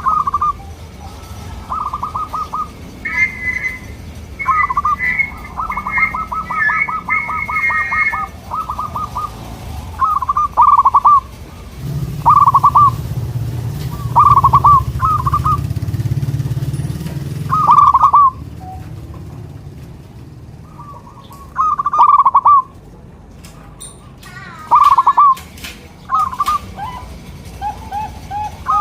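Zebra doves cooing. Fast rolling trilled phrases come in the first third, then short loud coos every two to four seconds. A low hum sits underneath partway through.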